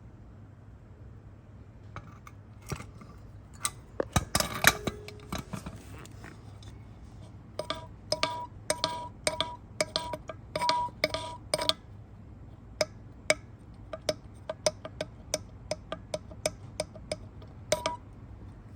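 Metal parts clinking and tapping against each other, many strikes ringing briefly, in irregular runs with a dense cluster near the middle and a string of evenly spaced taps near the end.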